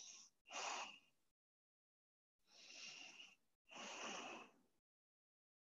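Faint breathing of a woman holding a forward fold: two short breaths at the start, then two longer ones about three and four seconds in.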